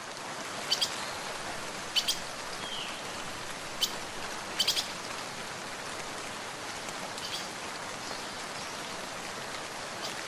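Steady hiss of rain, with a few short sharp sounds every one to three seconds, some in quick pairs.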